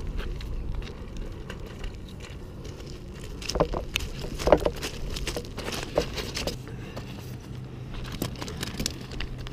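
Footsteps crunching over loose river cobbles, stones clacking sharply underfoot, busiest and loudest around the middle. A steady low rumble runs underneath.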